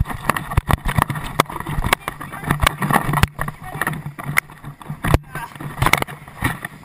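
Handling noise from a body-worn action camera: irregular sharp knocks and scrapes as the housing and strap shift with arm movements, over a rough rumble of wind on the microphone.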